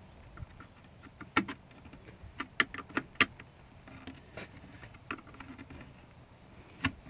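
Irregular small clicks and taps of a pocket screwdriver prying at the blue locking tab of a plastic speaker wiring connector.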